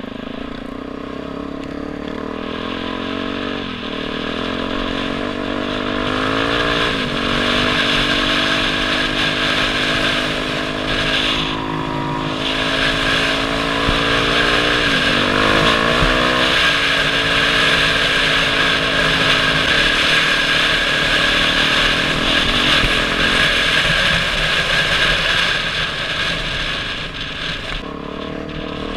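Dirt bike engine running under way, its note dipping and climbing several times with the throttle, over a steady rush of wind on a helmet-mounted microphone.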